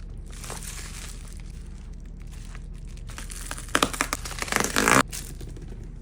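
Packaging being opened: a burst of crinkling and tearing from about three and a half seconds in, lasting just over a second and cutting off suddenly, over a low steady hum.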